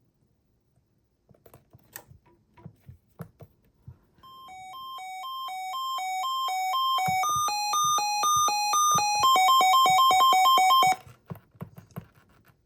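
Sangean CL-100 weather alert radio sounding its siren alert test: an electronic two-tone beep alternating between two pitches and growing steadily louder. About three seconds in it moves to a slightly higher pair of tones, then alternates faster, and cuts off suddenly. A few clicks come before and after it.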